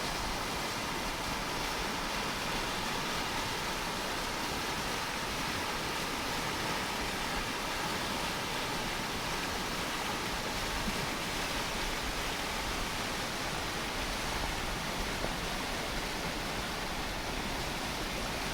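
Mountain stream rushing steadily over rocks, a continuous even wash of water.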